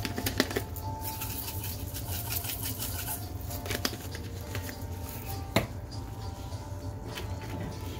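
Omelet cooking in a cast iron skillet, with a faint scattered crackle of sizzling egg over a steady low hum. A single sharp click sounds a little past halfway.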